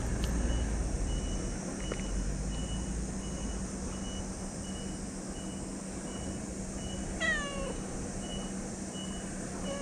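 A stray cat meows once about seven seconds in, a short call falling in pitch, and starts another right at the end. Behind it a faint high beep repeats about twice a second over a steady low hum.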